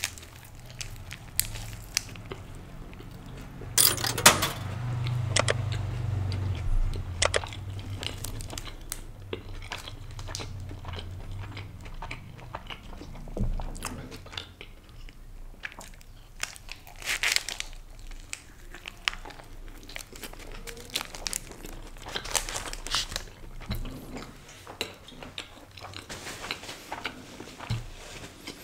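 A person biting into and chewing a smoky sausage tortilla wrap close to the microphone. There is a sharp bite about four seconds in, then chewing with small crunches and clicks, and the paper wrapper crinkles now and then.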